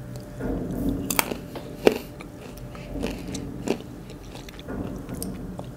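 Close-miked chewing of crunchy black sesame-flavored almonds, with a few sharp crunches between bouts of chewing.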